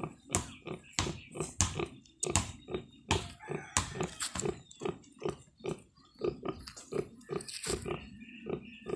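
A nursing sow grunting in a steady rhythm, about three short grunts a second, while her piglets suckle. This even grunting is typical of a sow during milk let-down.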